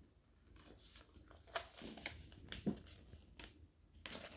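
A sheet of paper being folded by hand into a paper airplane: a few faint rustles and scrapes as fingers press and run along the crease.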